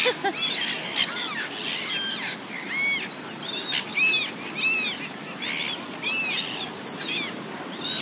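A flock of silver gulls squawking repeatedly: short, harsh, high calls, sometimes several a second, as the birds crowd and hover around food held up for them.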